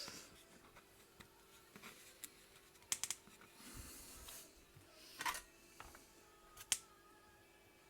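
Sharp clicks and taps of small tools and parts being handled on a soldering bench, four or five of them, one a quick double about three seconds in, with a soft hiss near the middle and a faint steady hum underneath.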